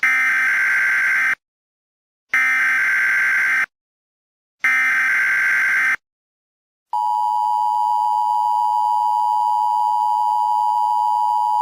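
Emergency Alert System tones: three bursts of digital SAME header data, each about a second long with short gaps between them. The steady two-tone EAS attention signal starts about seven seconds in.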